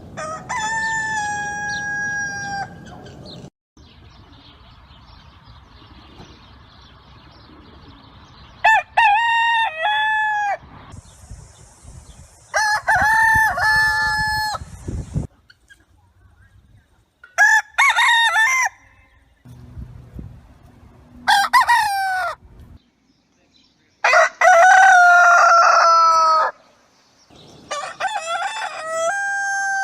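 Roosters crowing, about seven cock-a-doodle-doo calls one after another, each one to three seconds long. They come from different recordings, with short gaps between them and the background changing from one crow to the next.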